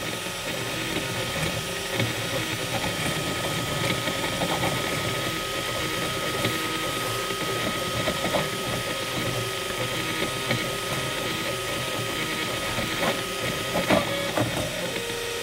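Dual-extruder FDM 3D printer at work: the print head's stepper motors whirring and buzzing in quick, changing patterns as it lays down a layer, with a steady high whine that stops near the end, followed by a couple of sharper clicks.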